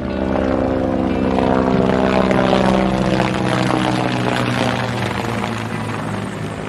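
A loud, steady mechanical drone with a low pitched hum, swelling over the first couple of seconds and then slowly easing off.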